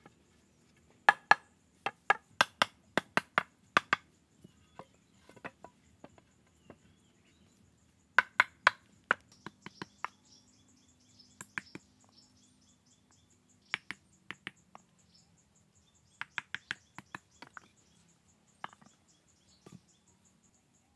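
Chopping with a blade: runs of sharp strikes, about two to three a second, broken by pauses of a few seconds.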